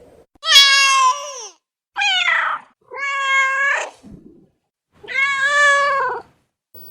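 A domestic cat meowing four times, each meow under a second to just over a second long, with short pauses between.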